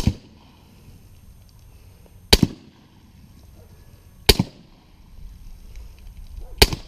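Suppressed pistol firing subsonic 'Hush' ammunition: four single shots about two seconds apart, each a sharp crack with a short tail of echo.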